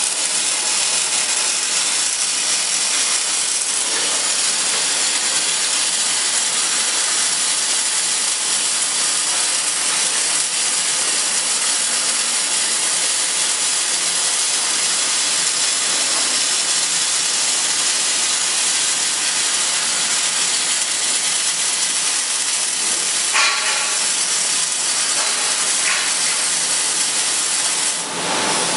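Welding arc of an automatic circumferential welding machine burning steadily as one continuous, even hiss.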